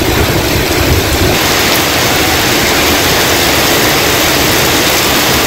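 Heavy rain pouring down, a loud steady hiss, with a low rumble in the first second or so.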